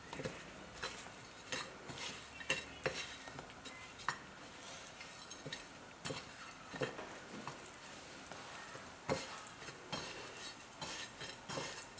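Hands pressing and turning raw chicken in a dry spice rub on a ceramic plate: faint, irregular taps, slaps and rubbing as the meat and fingers knock against the plate.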